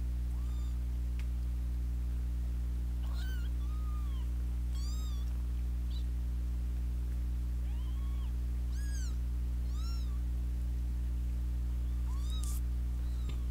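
Kittens mewing in short, high cries that rise and fall, about a dozen at irregular intervals, over a steady low hum.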